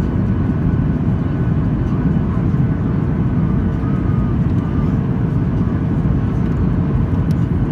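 Steady roar of a Boeing 737-800's CFM56-7B engines and airflow, heard inside the cabin in flight, with a faint steady hum above it.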